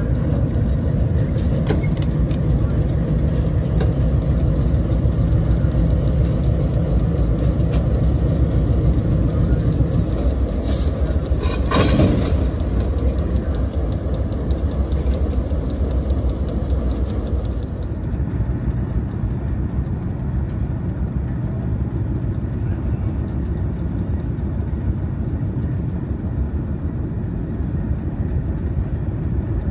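Diesel locomotive running with a heavy, steady low rumble, with a brief clatter of sharp clicks about eleven to twelve seconds in.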